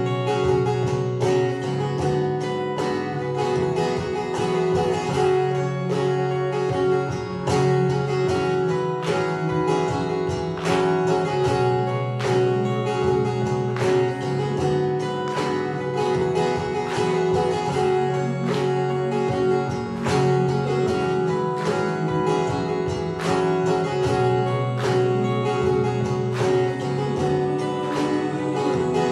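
Layered acoustic guitar loops playing back from a Boss RC-300 loop station, repeating a short phrase over a steady percussive beat.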